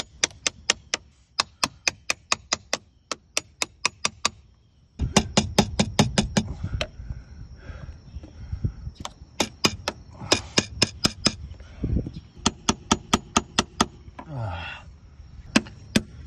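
Hammer tapping a putty knife wedged between the boat hull and a B60 through-hull transducer, sharp taps about three a second in runs with short pauses. The strikes drive the blade in to break the 3M 5200 adhesive that holds the transducer fast.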